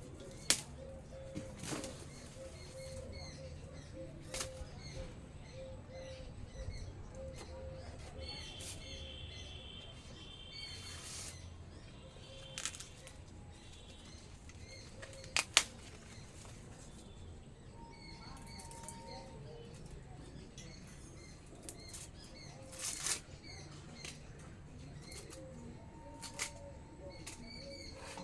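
Small birds chirping again and again, with a few sharp snaps and rustles, the loudest about half a second in and again about halfway through.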